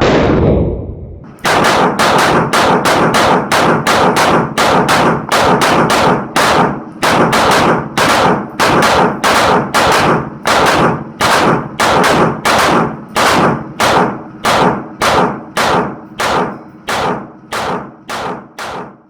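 One loud bang with a long fading tail, then a steady run of sharp bangs about one and a half a second, growing fainter near the end.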